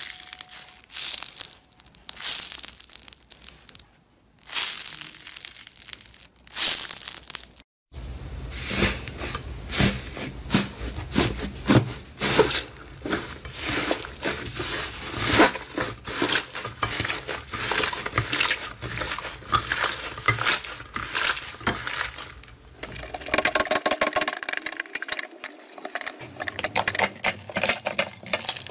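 Crunchy honeycomb slime squeezed between fingers, crackling in separate bursts. About eight seconds in it gives way to a fluffy white-and-blue slime kneaded by hand in a plate, a dense, continuous run of sticky crackles and squelches.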